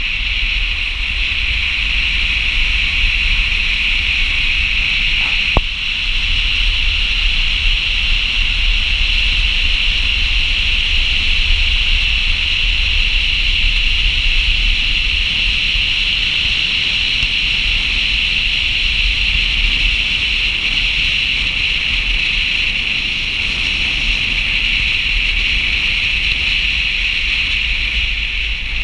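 Steady rush of wind and road noise from a vehicle driving down a snow-covered mountain road, with a low rumble underneath. A single sharp click comes about six seconds in.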